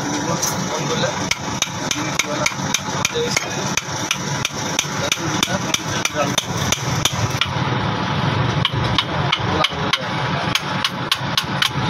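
A hammer taps a piston down through a ring compressor sleeve into a cylinder of a Daewoo BH120 bus engine. The quick, even metal taps come about three a second and close up to about four a second after about eight seconds, over a steady low hum.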